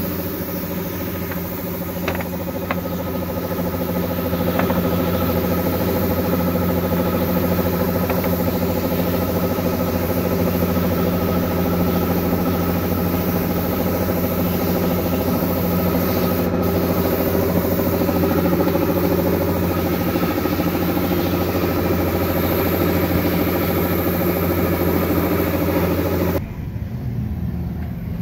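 A motor running steadily with a constant hum, stopping abruptly near the end.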